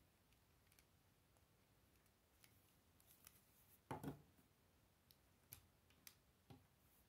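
Small plastic Lego bricks clicking and tapping as a model is handled. A soft knock about four seconds in as the model is set down on a wooden table, followed by a few light clicks.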